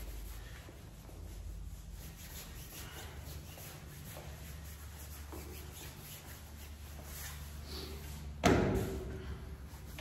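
Whiteboard eraser rubbing faintly over the board, over a steady low room hum. A single loud thump with a short ring comes about eight and a half seconds in.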